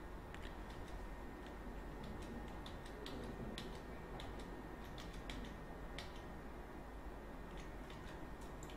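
Scattered faint clicks of a computer mouse and keyboard in use, irregularly spaced, over a steady low hum.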